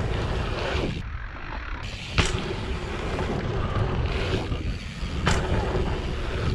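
Dirt jumper mountain bike ridden fast over a packed-dirt jump line: tyres rolling on dirt and wind rushing over the camera microphone. A sharp clack about two seconds in, after a short quieter spell, as the bike lands a jump, and another about five seconds in.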